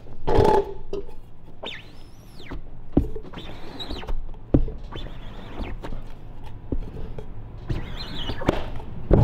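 A rubber squeegee is dragged across an ink-flooded screen on a manual screen-printing press: several scraping strokes of about a second each, with sharp knocks between them. The extra strokes are there because the ink was not clearing through the mesh on one side.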